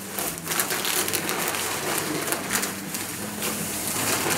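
Crumpled packing paper rustling and crinkling in irregular bursts as it is pulled and pushed aside in a cardboard box.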